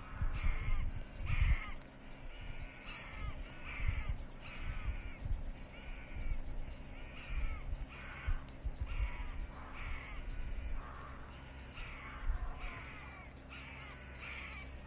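Birds calling over and over, short harsh arched calls about twice a second that thin out near the end, over a low uneven rumble.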